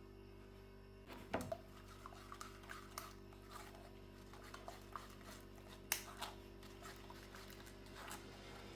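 Occasional light clinks and knocks of kitchen utensils and dishes being handled, the sharpest about a second in and near six seconds, over a faint steady hum.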